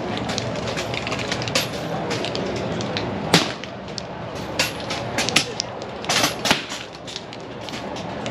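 Air rifles firing along a benchrest line: irregular sharp cracks from several rifles, the loudest about three and a half seconds in, over a steady background rush.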